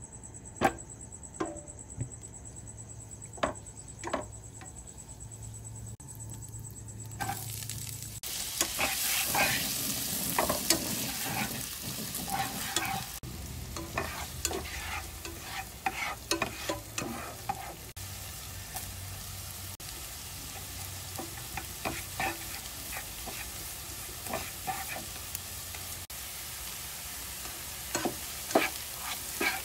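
Chopped onion frying in oil in a nonstick pan, sizzling while a spatula stirs and scrapes it with frequent clicks and taps. For about the first seven seconds there are only a few sharp taps, and then the sizzle starts and stays.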